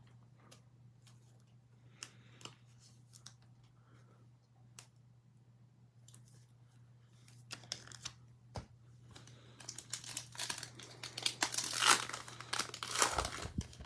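A trading card pack's wrapper being torn open and crinkled. Scattered light clicks and rustles at first, then dense crinkling and tearing from about ten seconds in, loudest near the end, over a faint steady low hum.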